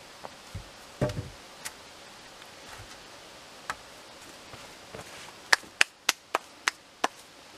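Wood being struck against wood: a heavier thud about a second in as a pole is set on the frame, then a quick run of about seven sharp knocks, roughly three a second, near the end.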